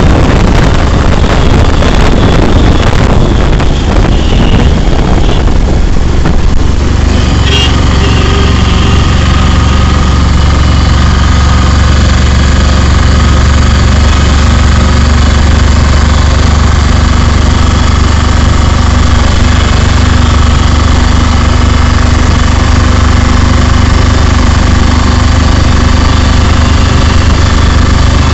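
A vehicle's engine droning steadily, heard from inside the cab while driving. Rushing wind and road noise dominate the first several seconds.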